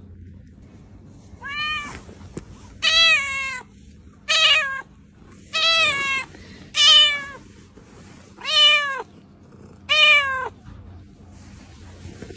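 Domestic cat meowing over and over, seven loud meows each about half a second long, pitch rising then falling, about one every second and a half.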